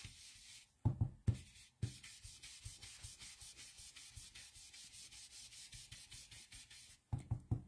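Round blending brush scrubbed in quick circles over cardstock, a soft steady rubbing. A few soft low thumps come about a second in and again near the end.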